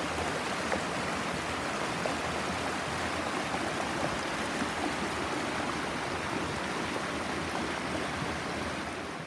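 Rushing water of a forest stream, a steady dense splashing hiss that cuts off suddenly near the end.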